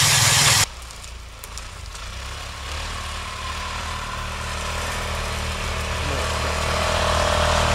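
Stompertech ATRV tracked vehicle: a loud rushing hiss of snow churned up by its tracks cuts off sharply about half a second in, giving way to the vehicle's engine running steadily, growing gradually louder.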